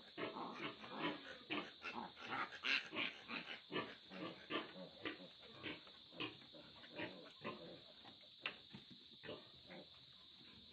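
A three-day-old piglet squealing in short repeated calls, about two a second, in distress as it is held for teeth and tail clipping. The calls grow weaker and sparser near the end.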